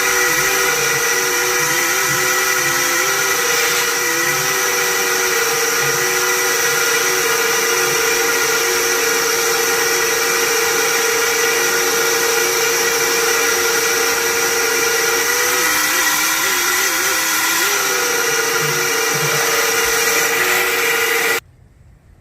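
Vacuum cleaner running steadily with a whining motor, its pitch dipping now and then as the suction load changes while it clears the emptied fish tank; it cuts off suddenly near the end.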